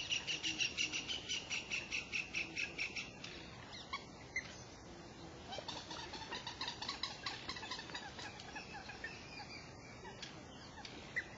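A bird calling: a fast, even run of high, clipped notes, about six or seven a second, for the first three seconds. After a short pause a second run of notes follows, with lower notes sliding downward beneath it.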